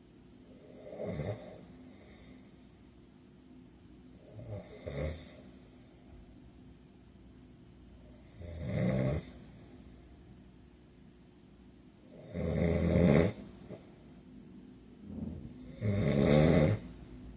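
A man snoring in his sleep: five snores, one about every three to four seconds, each louder than the last, the final two the longest and loudest.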